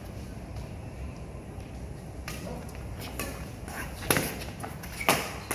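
Badminton rally: racket strings striking the shuttlecock, with two loud sharp hits about a second apart near the end and fainter hits before them, over a steady low hum.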